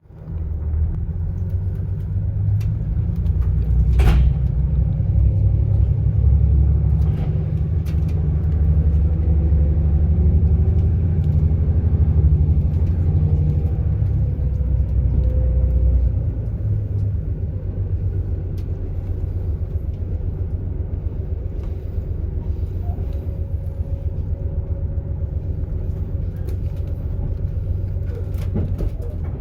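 KiHa 85 series diesel railcar heard from inside the passenger car, its diesel engines pulling the train away in a heavy, steady low rumble with a faintly rising engine pitch. A single sharp clack comes about four seconds in. The rumble eases about halfway through and settles into a steadier, somewhat quieter drone.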